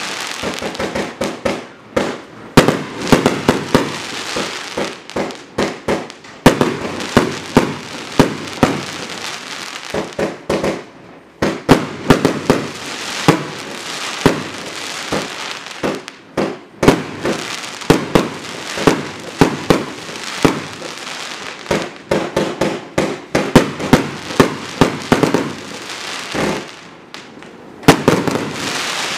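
A 49-shot consumer firework cake firing in rapid succession: shots launching and bursting into crackling flowers, with dense crackle between the louder reports. There is a brief lull near the end, then another loud burst.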